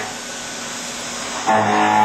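CNC mill roughing with a two-insert indexable bull-nose cutter at about 3,200 rpm under an air blast. There is an even hiss at first, then about a second and a half in a loud, steady pitched hum sets in sharply as the cutter engages.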